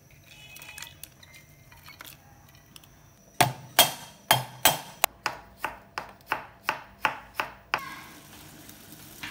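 Knife chopping a red chili on a bamboo cutting board: about a dozen sharp chops, roughly three a second. Near the end the chopping gives way to the steady hiss of a pot of sauce at a rolling boil.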